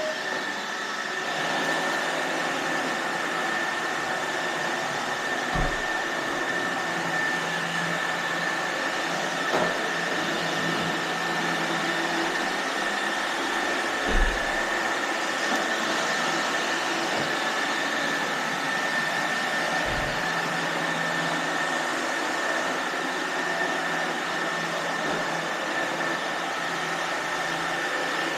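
iRobot Roomba robot vacuums running, a steady whirring with a constant high whine. A few dull thumps come through, the loudest about halfway through.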